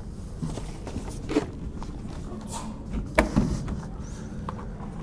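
A new window being handled and set into a framed wall opening: a few light knocks and scuffs of the window frame against the wall sheathing, over a steady low hum.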